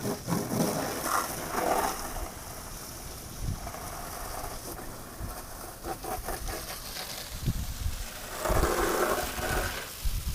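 Wind buffeting the microphone in uneven gusts over a steady hiss, with a louder rustling patch about eight seconds in.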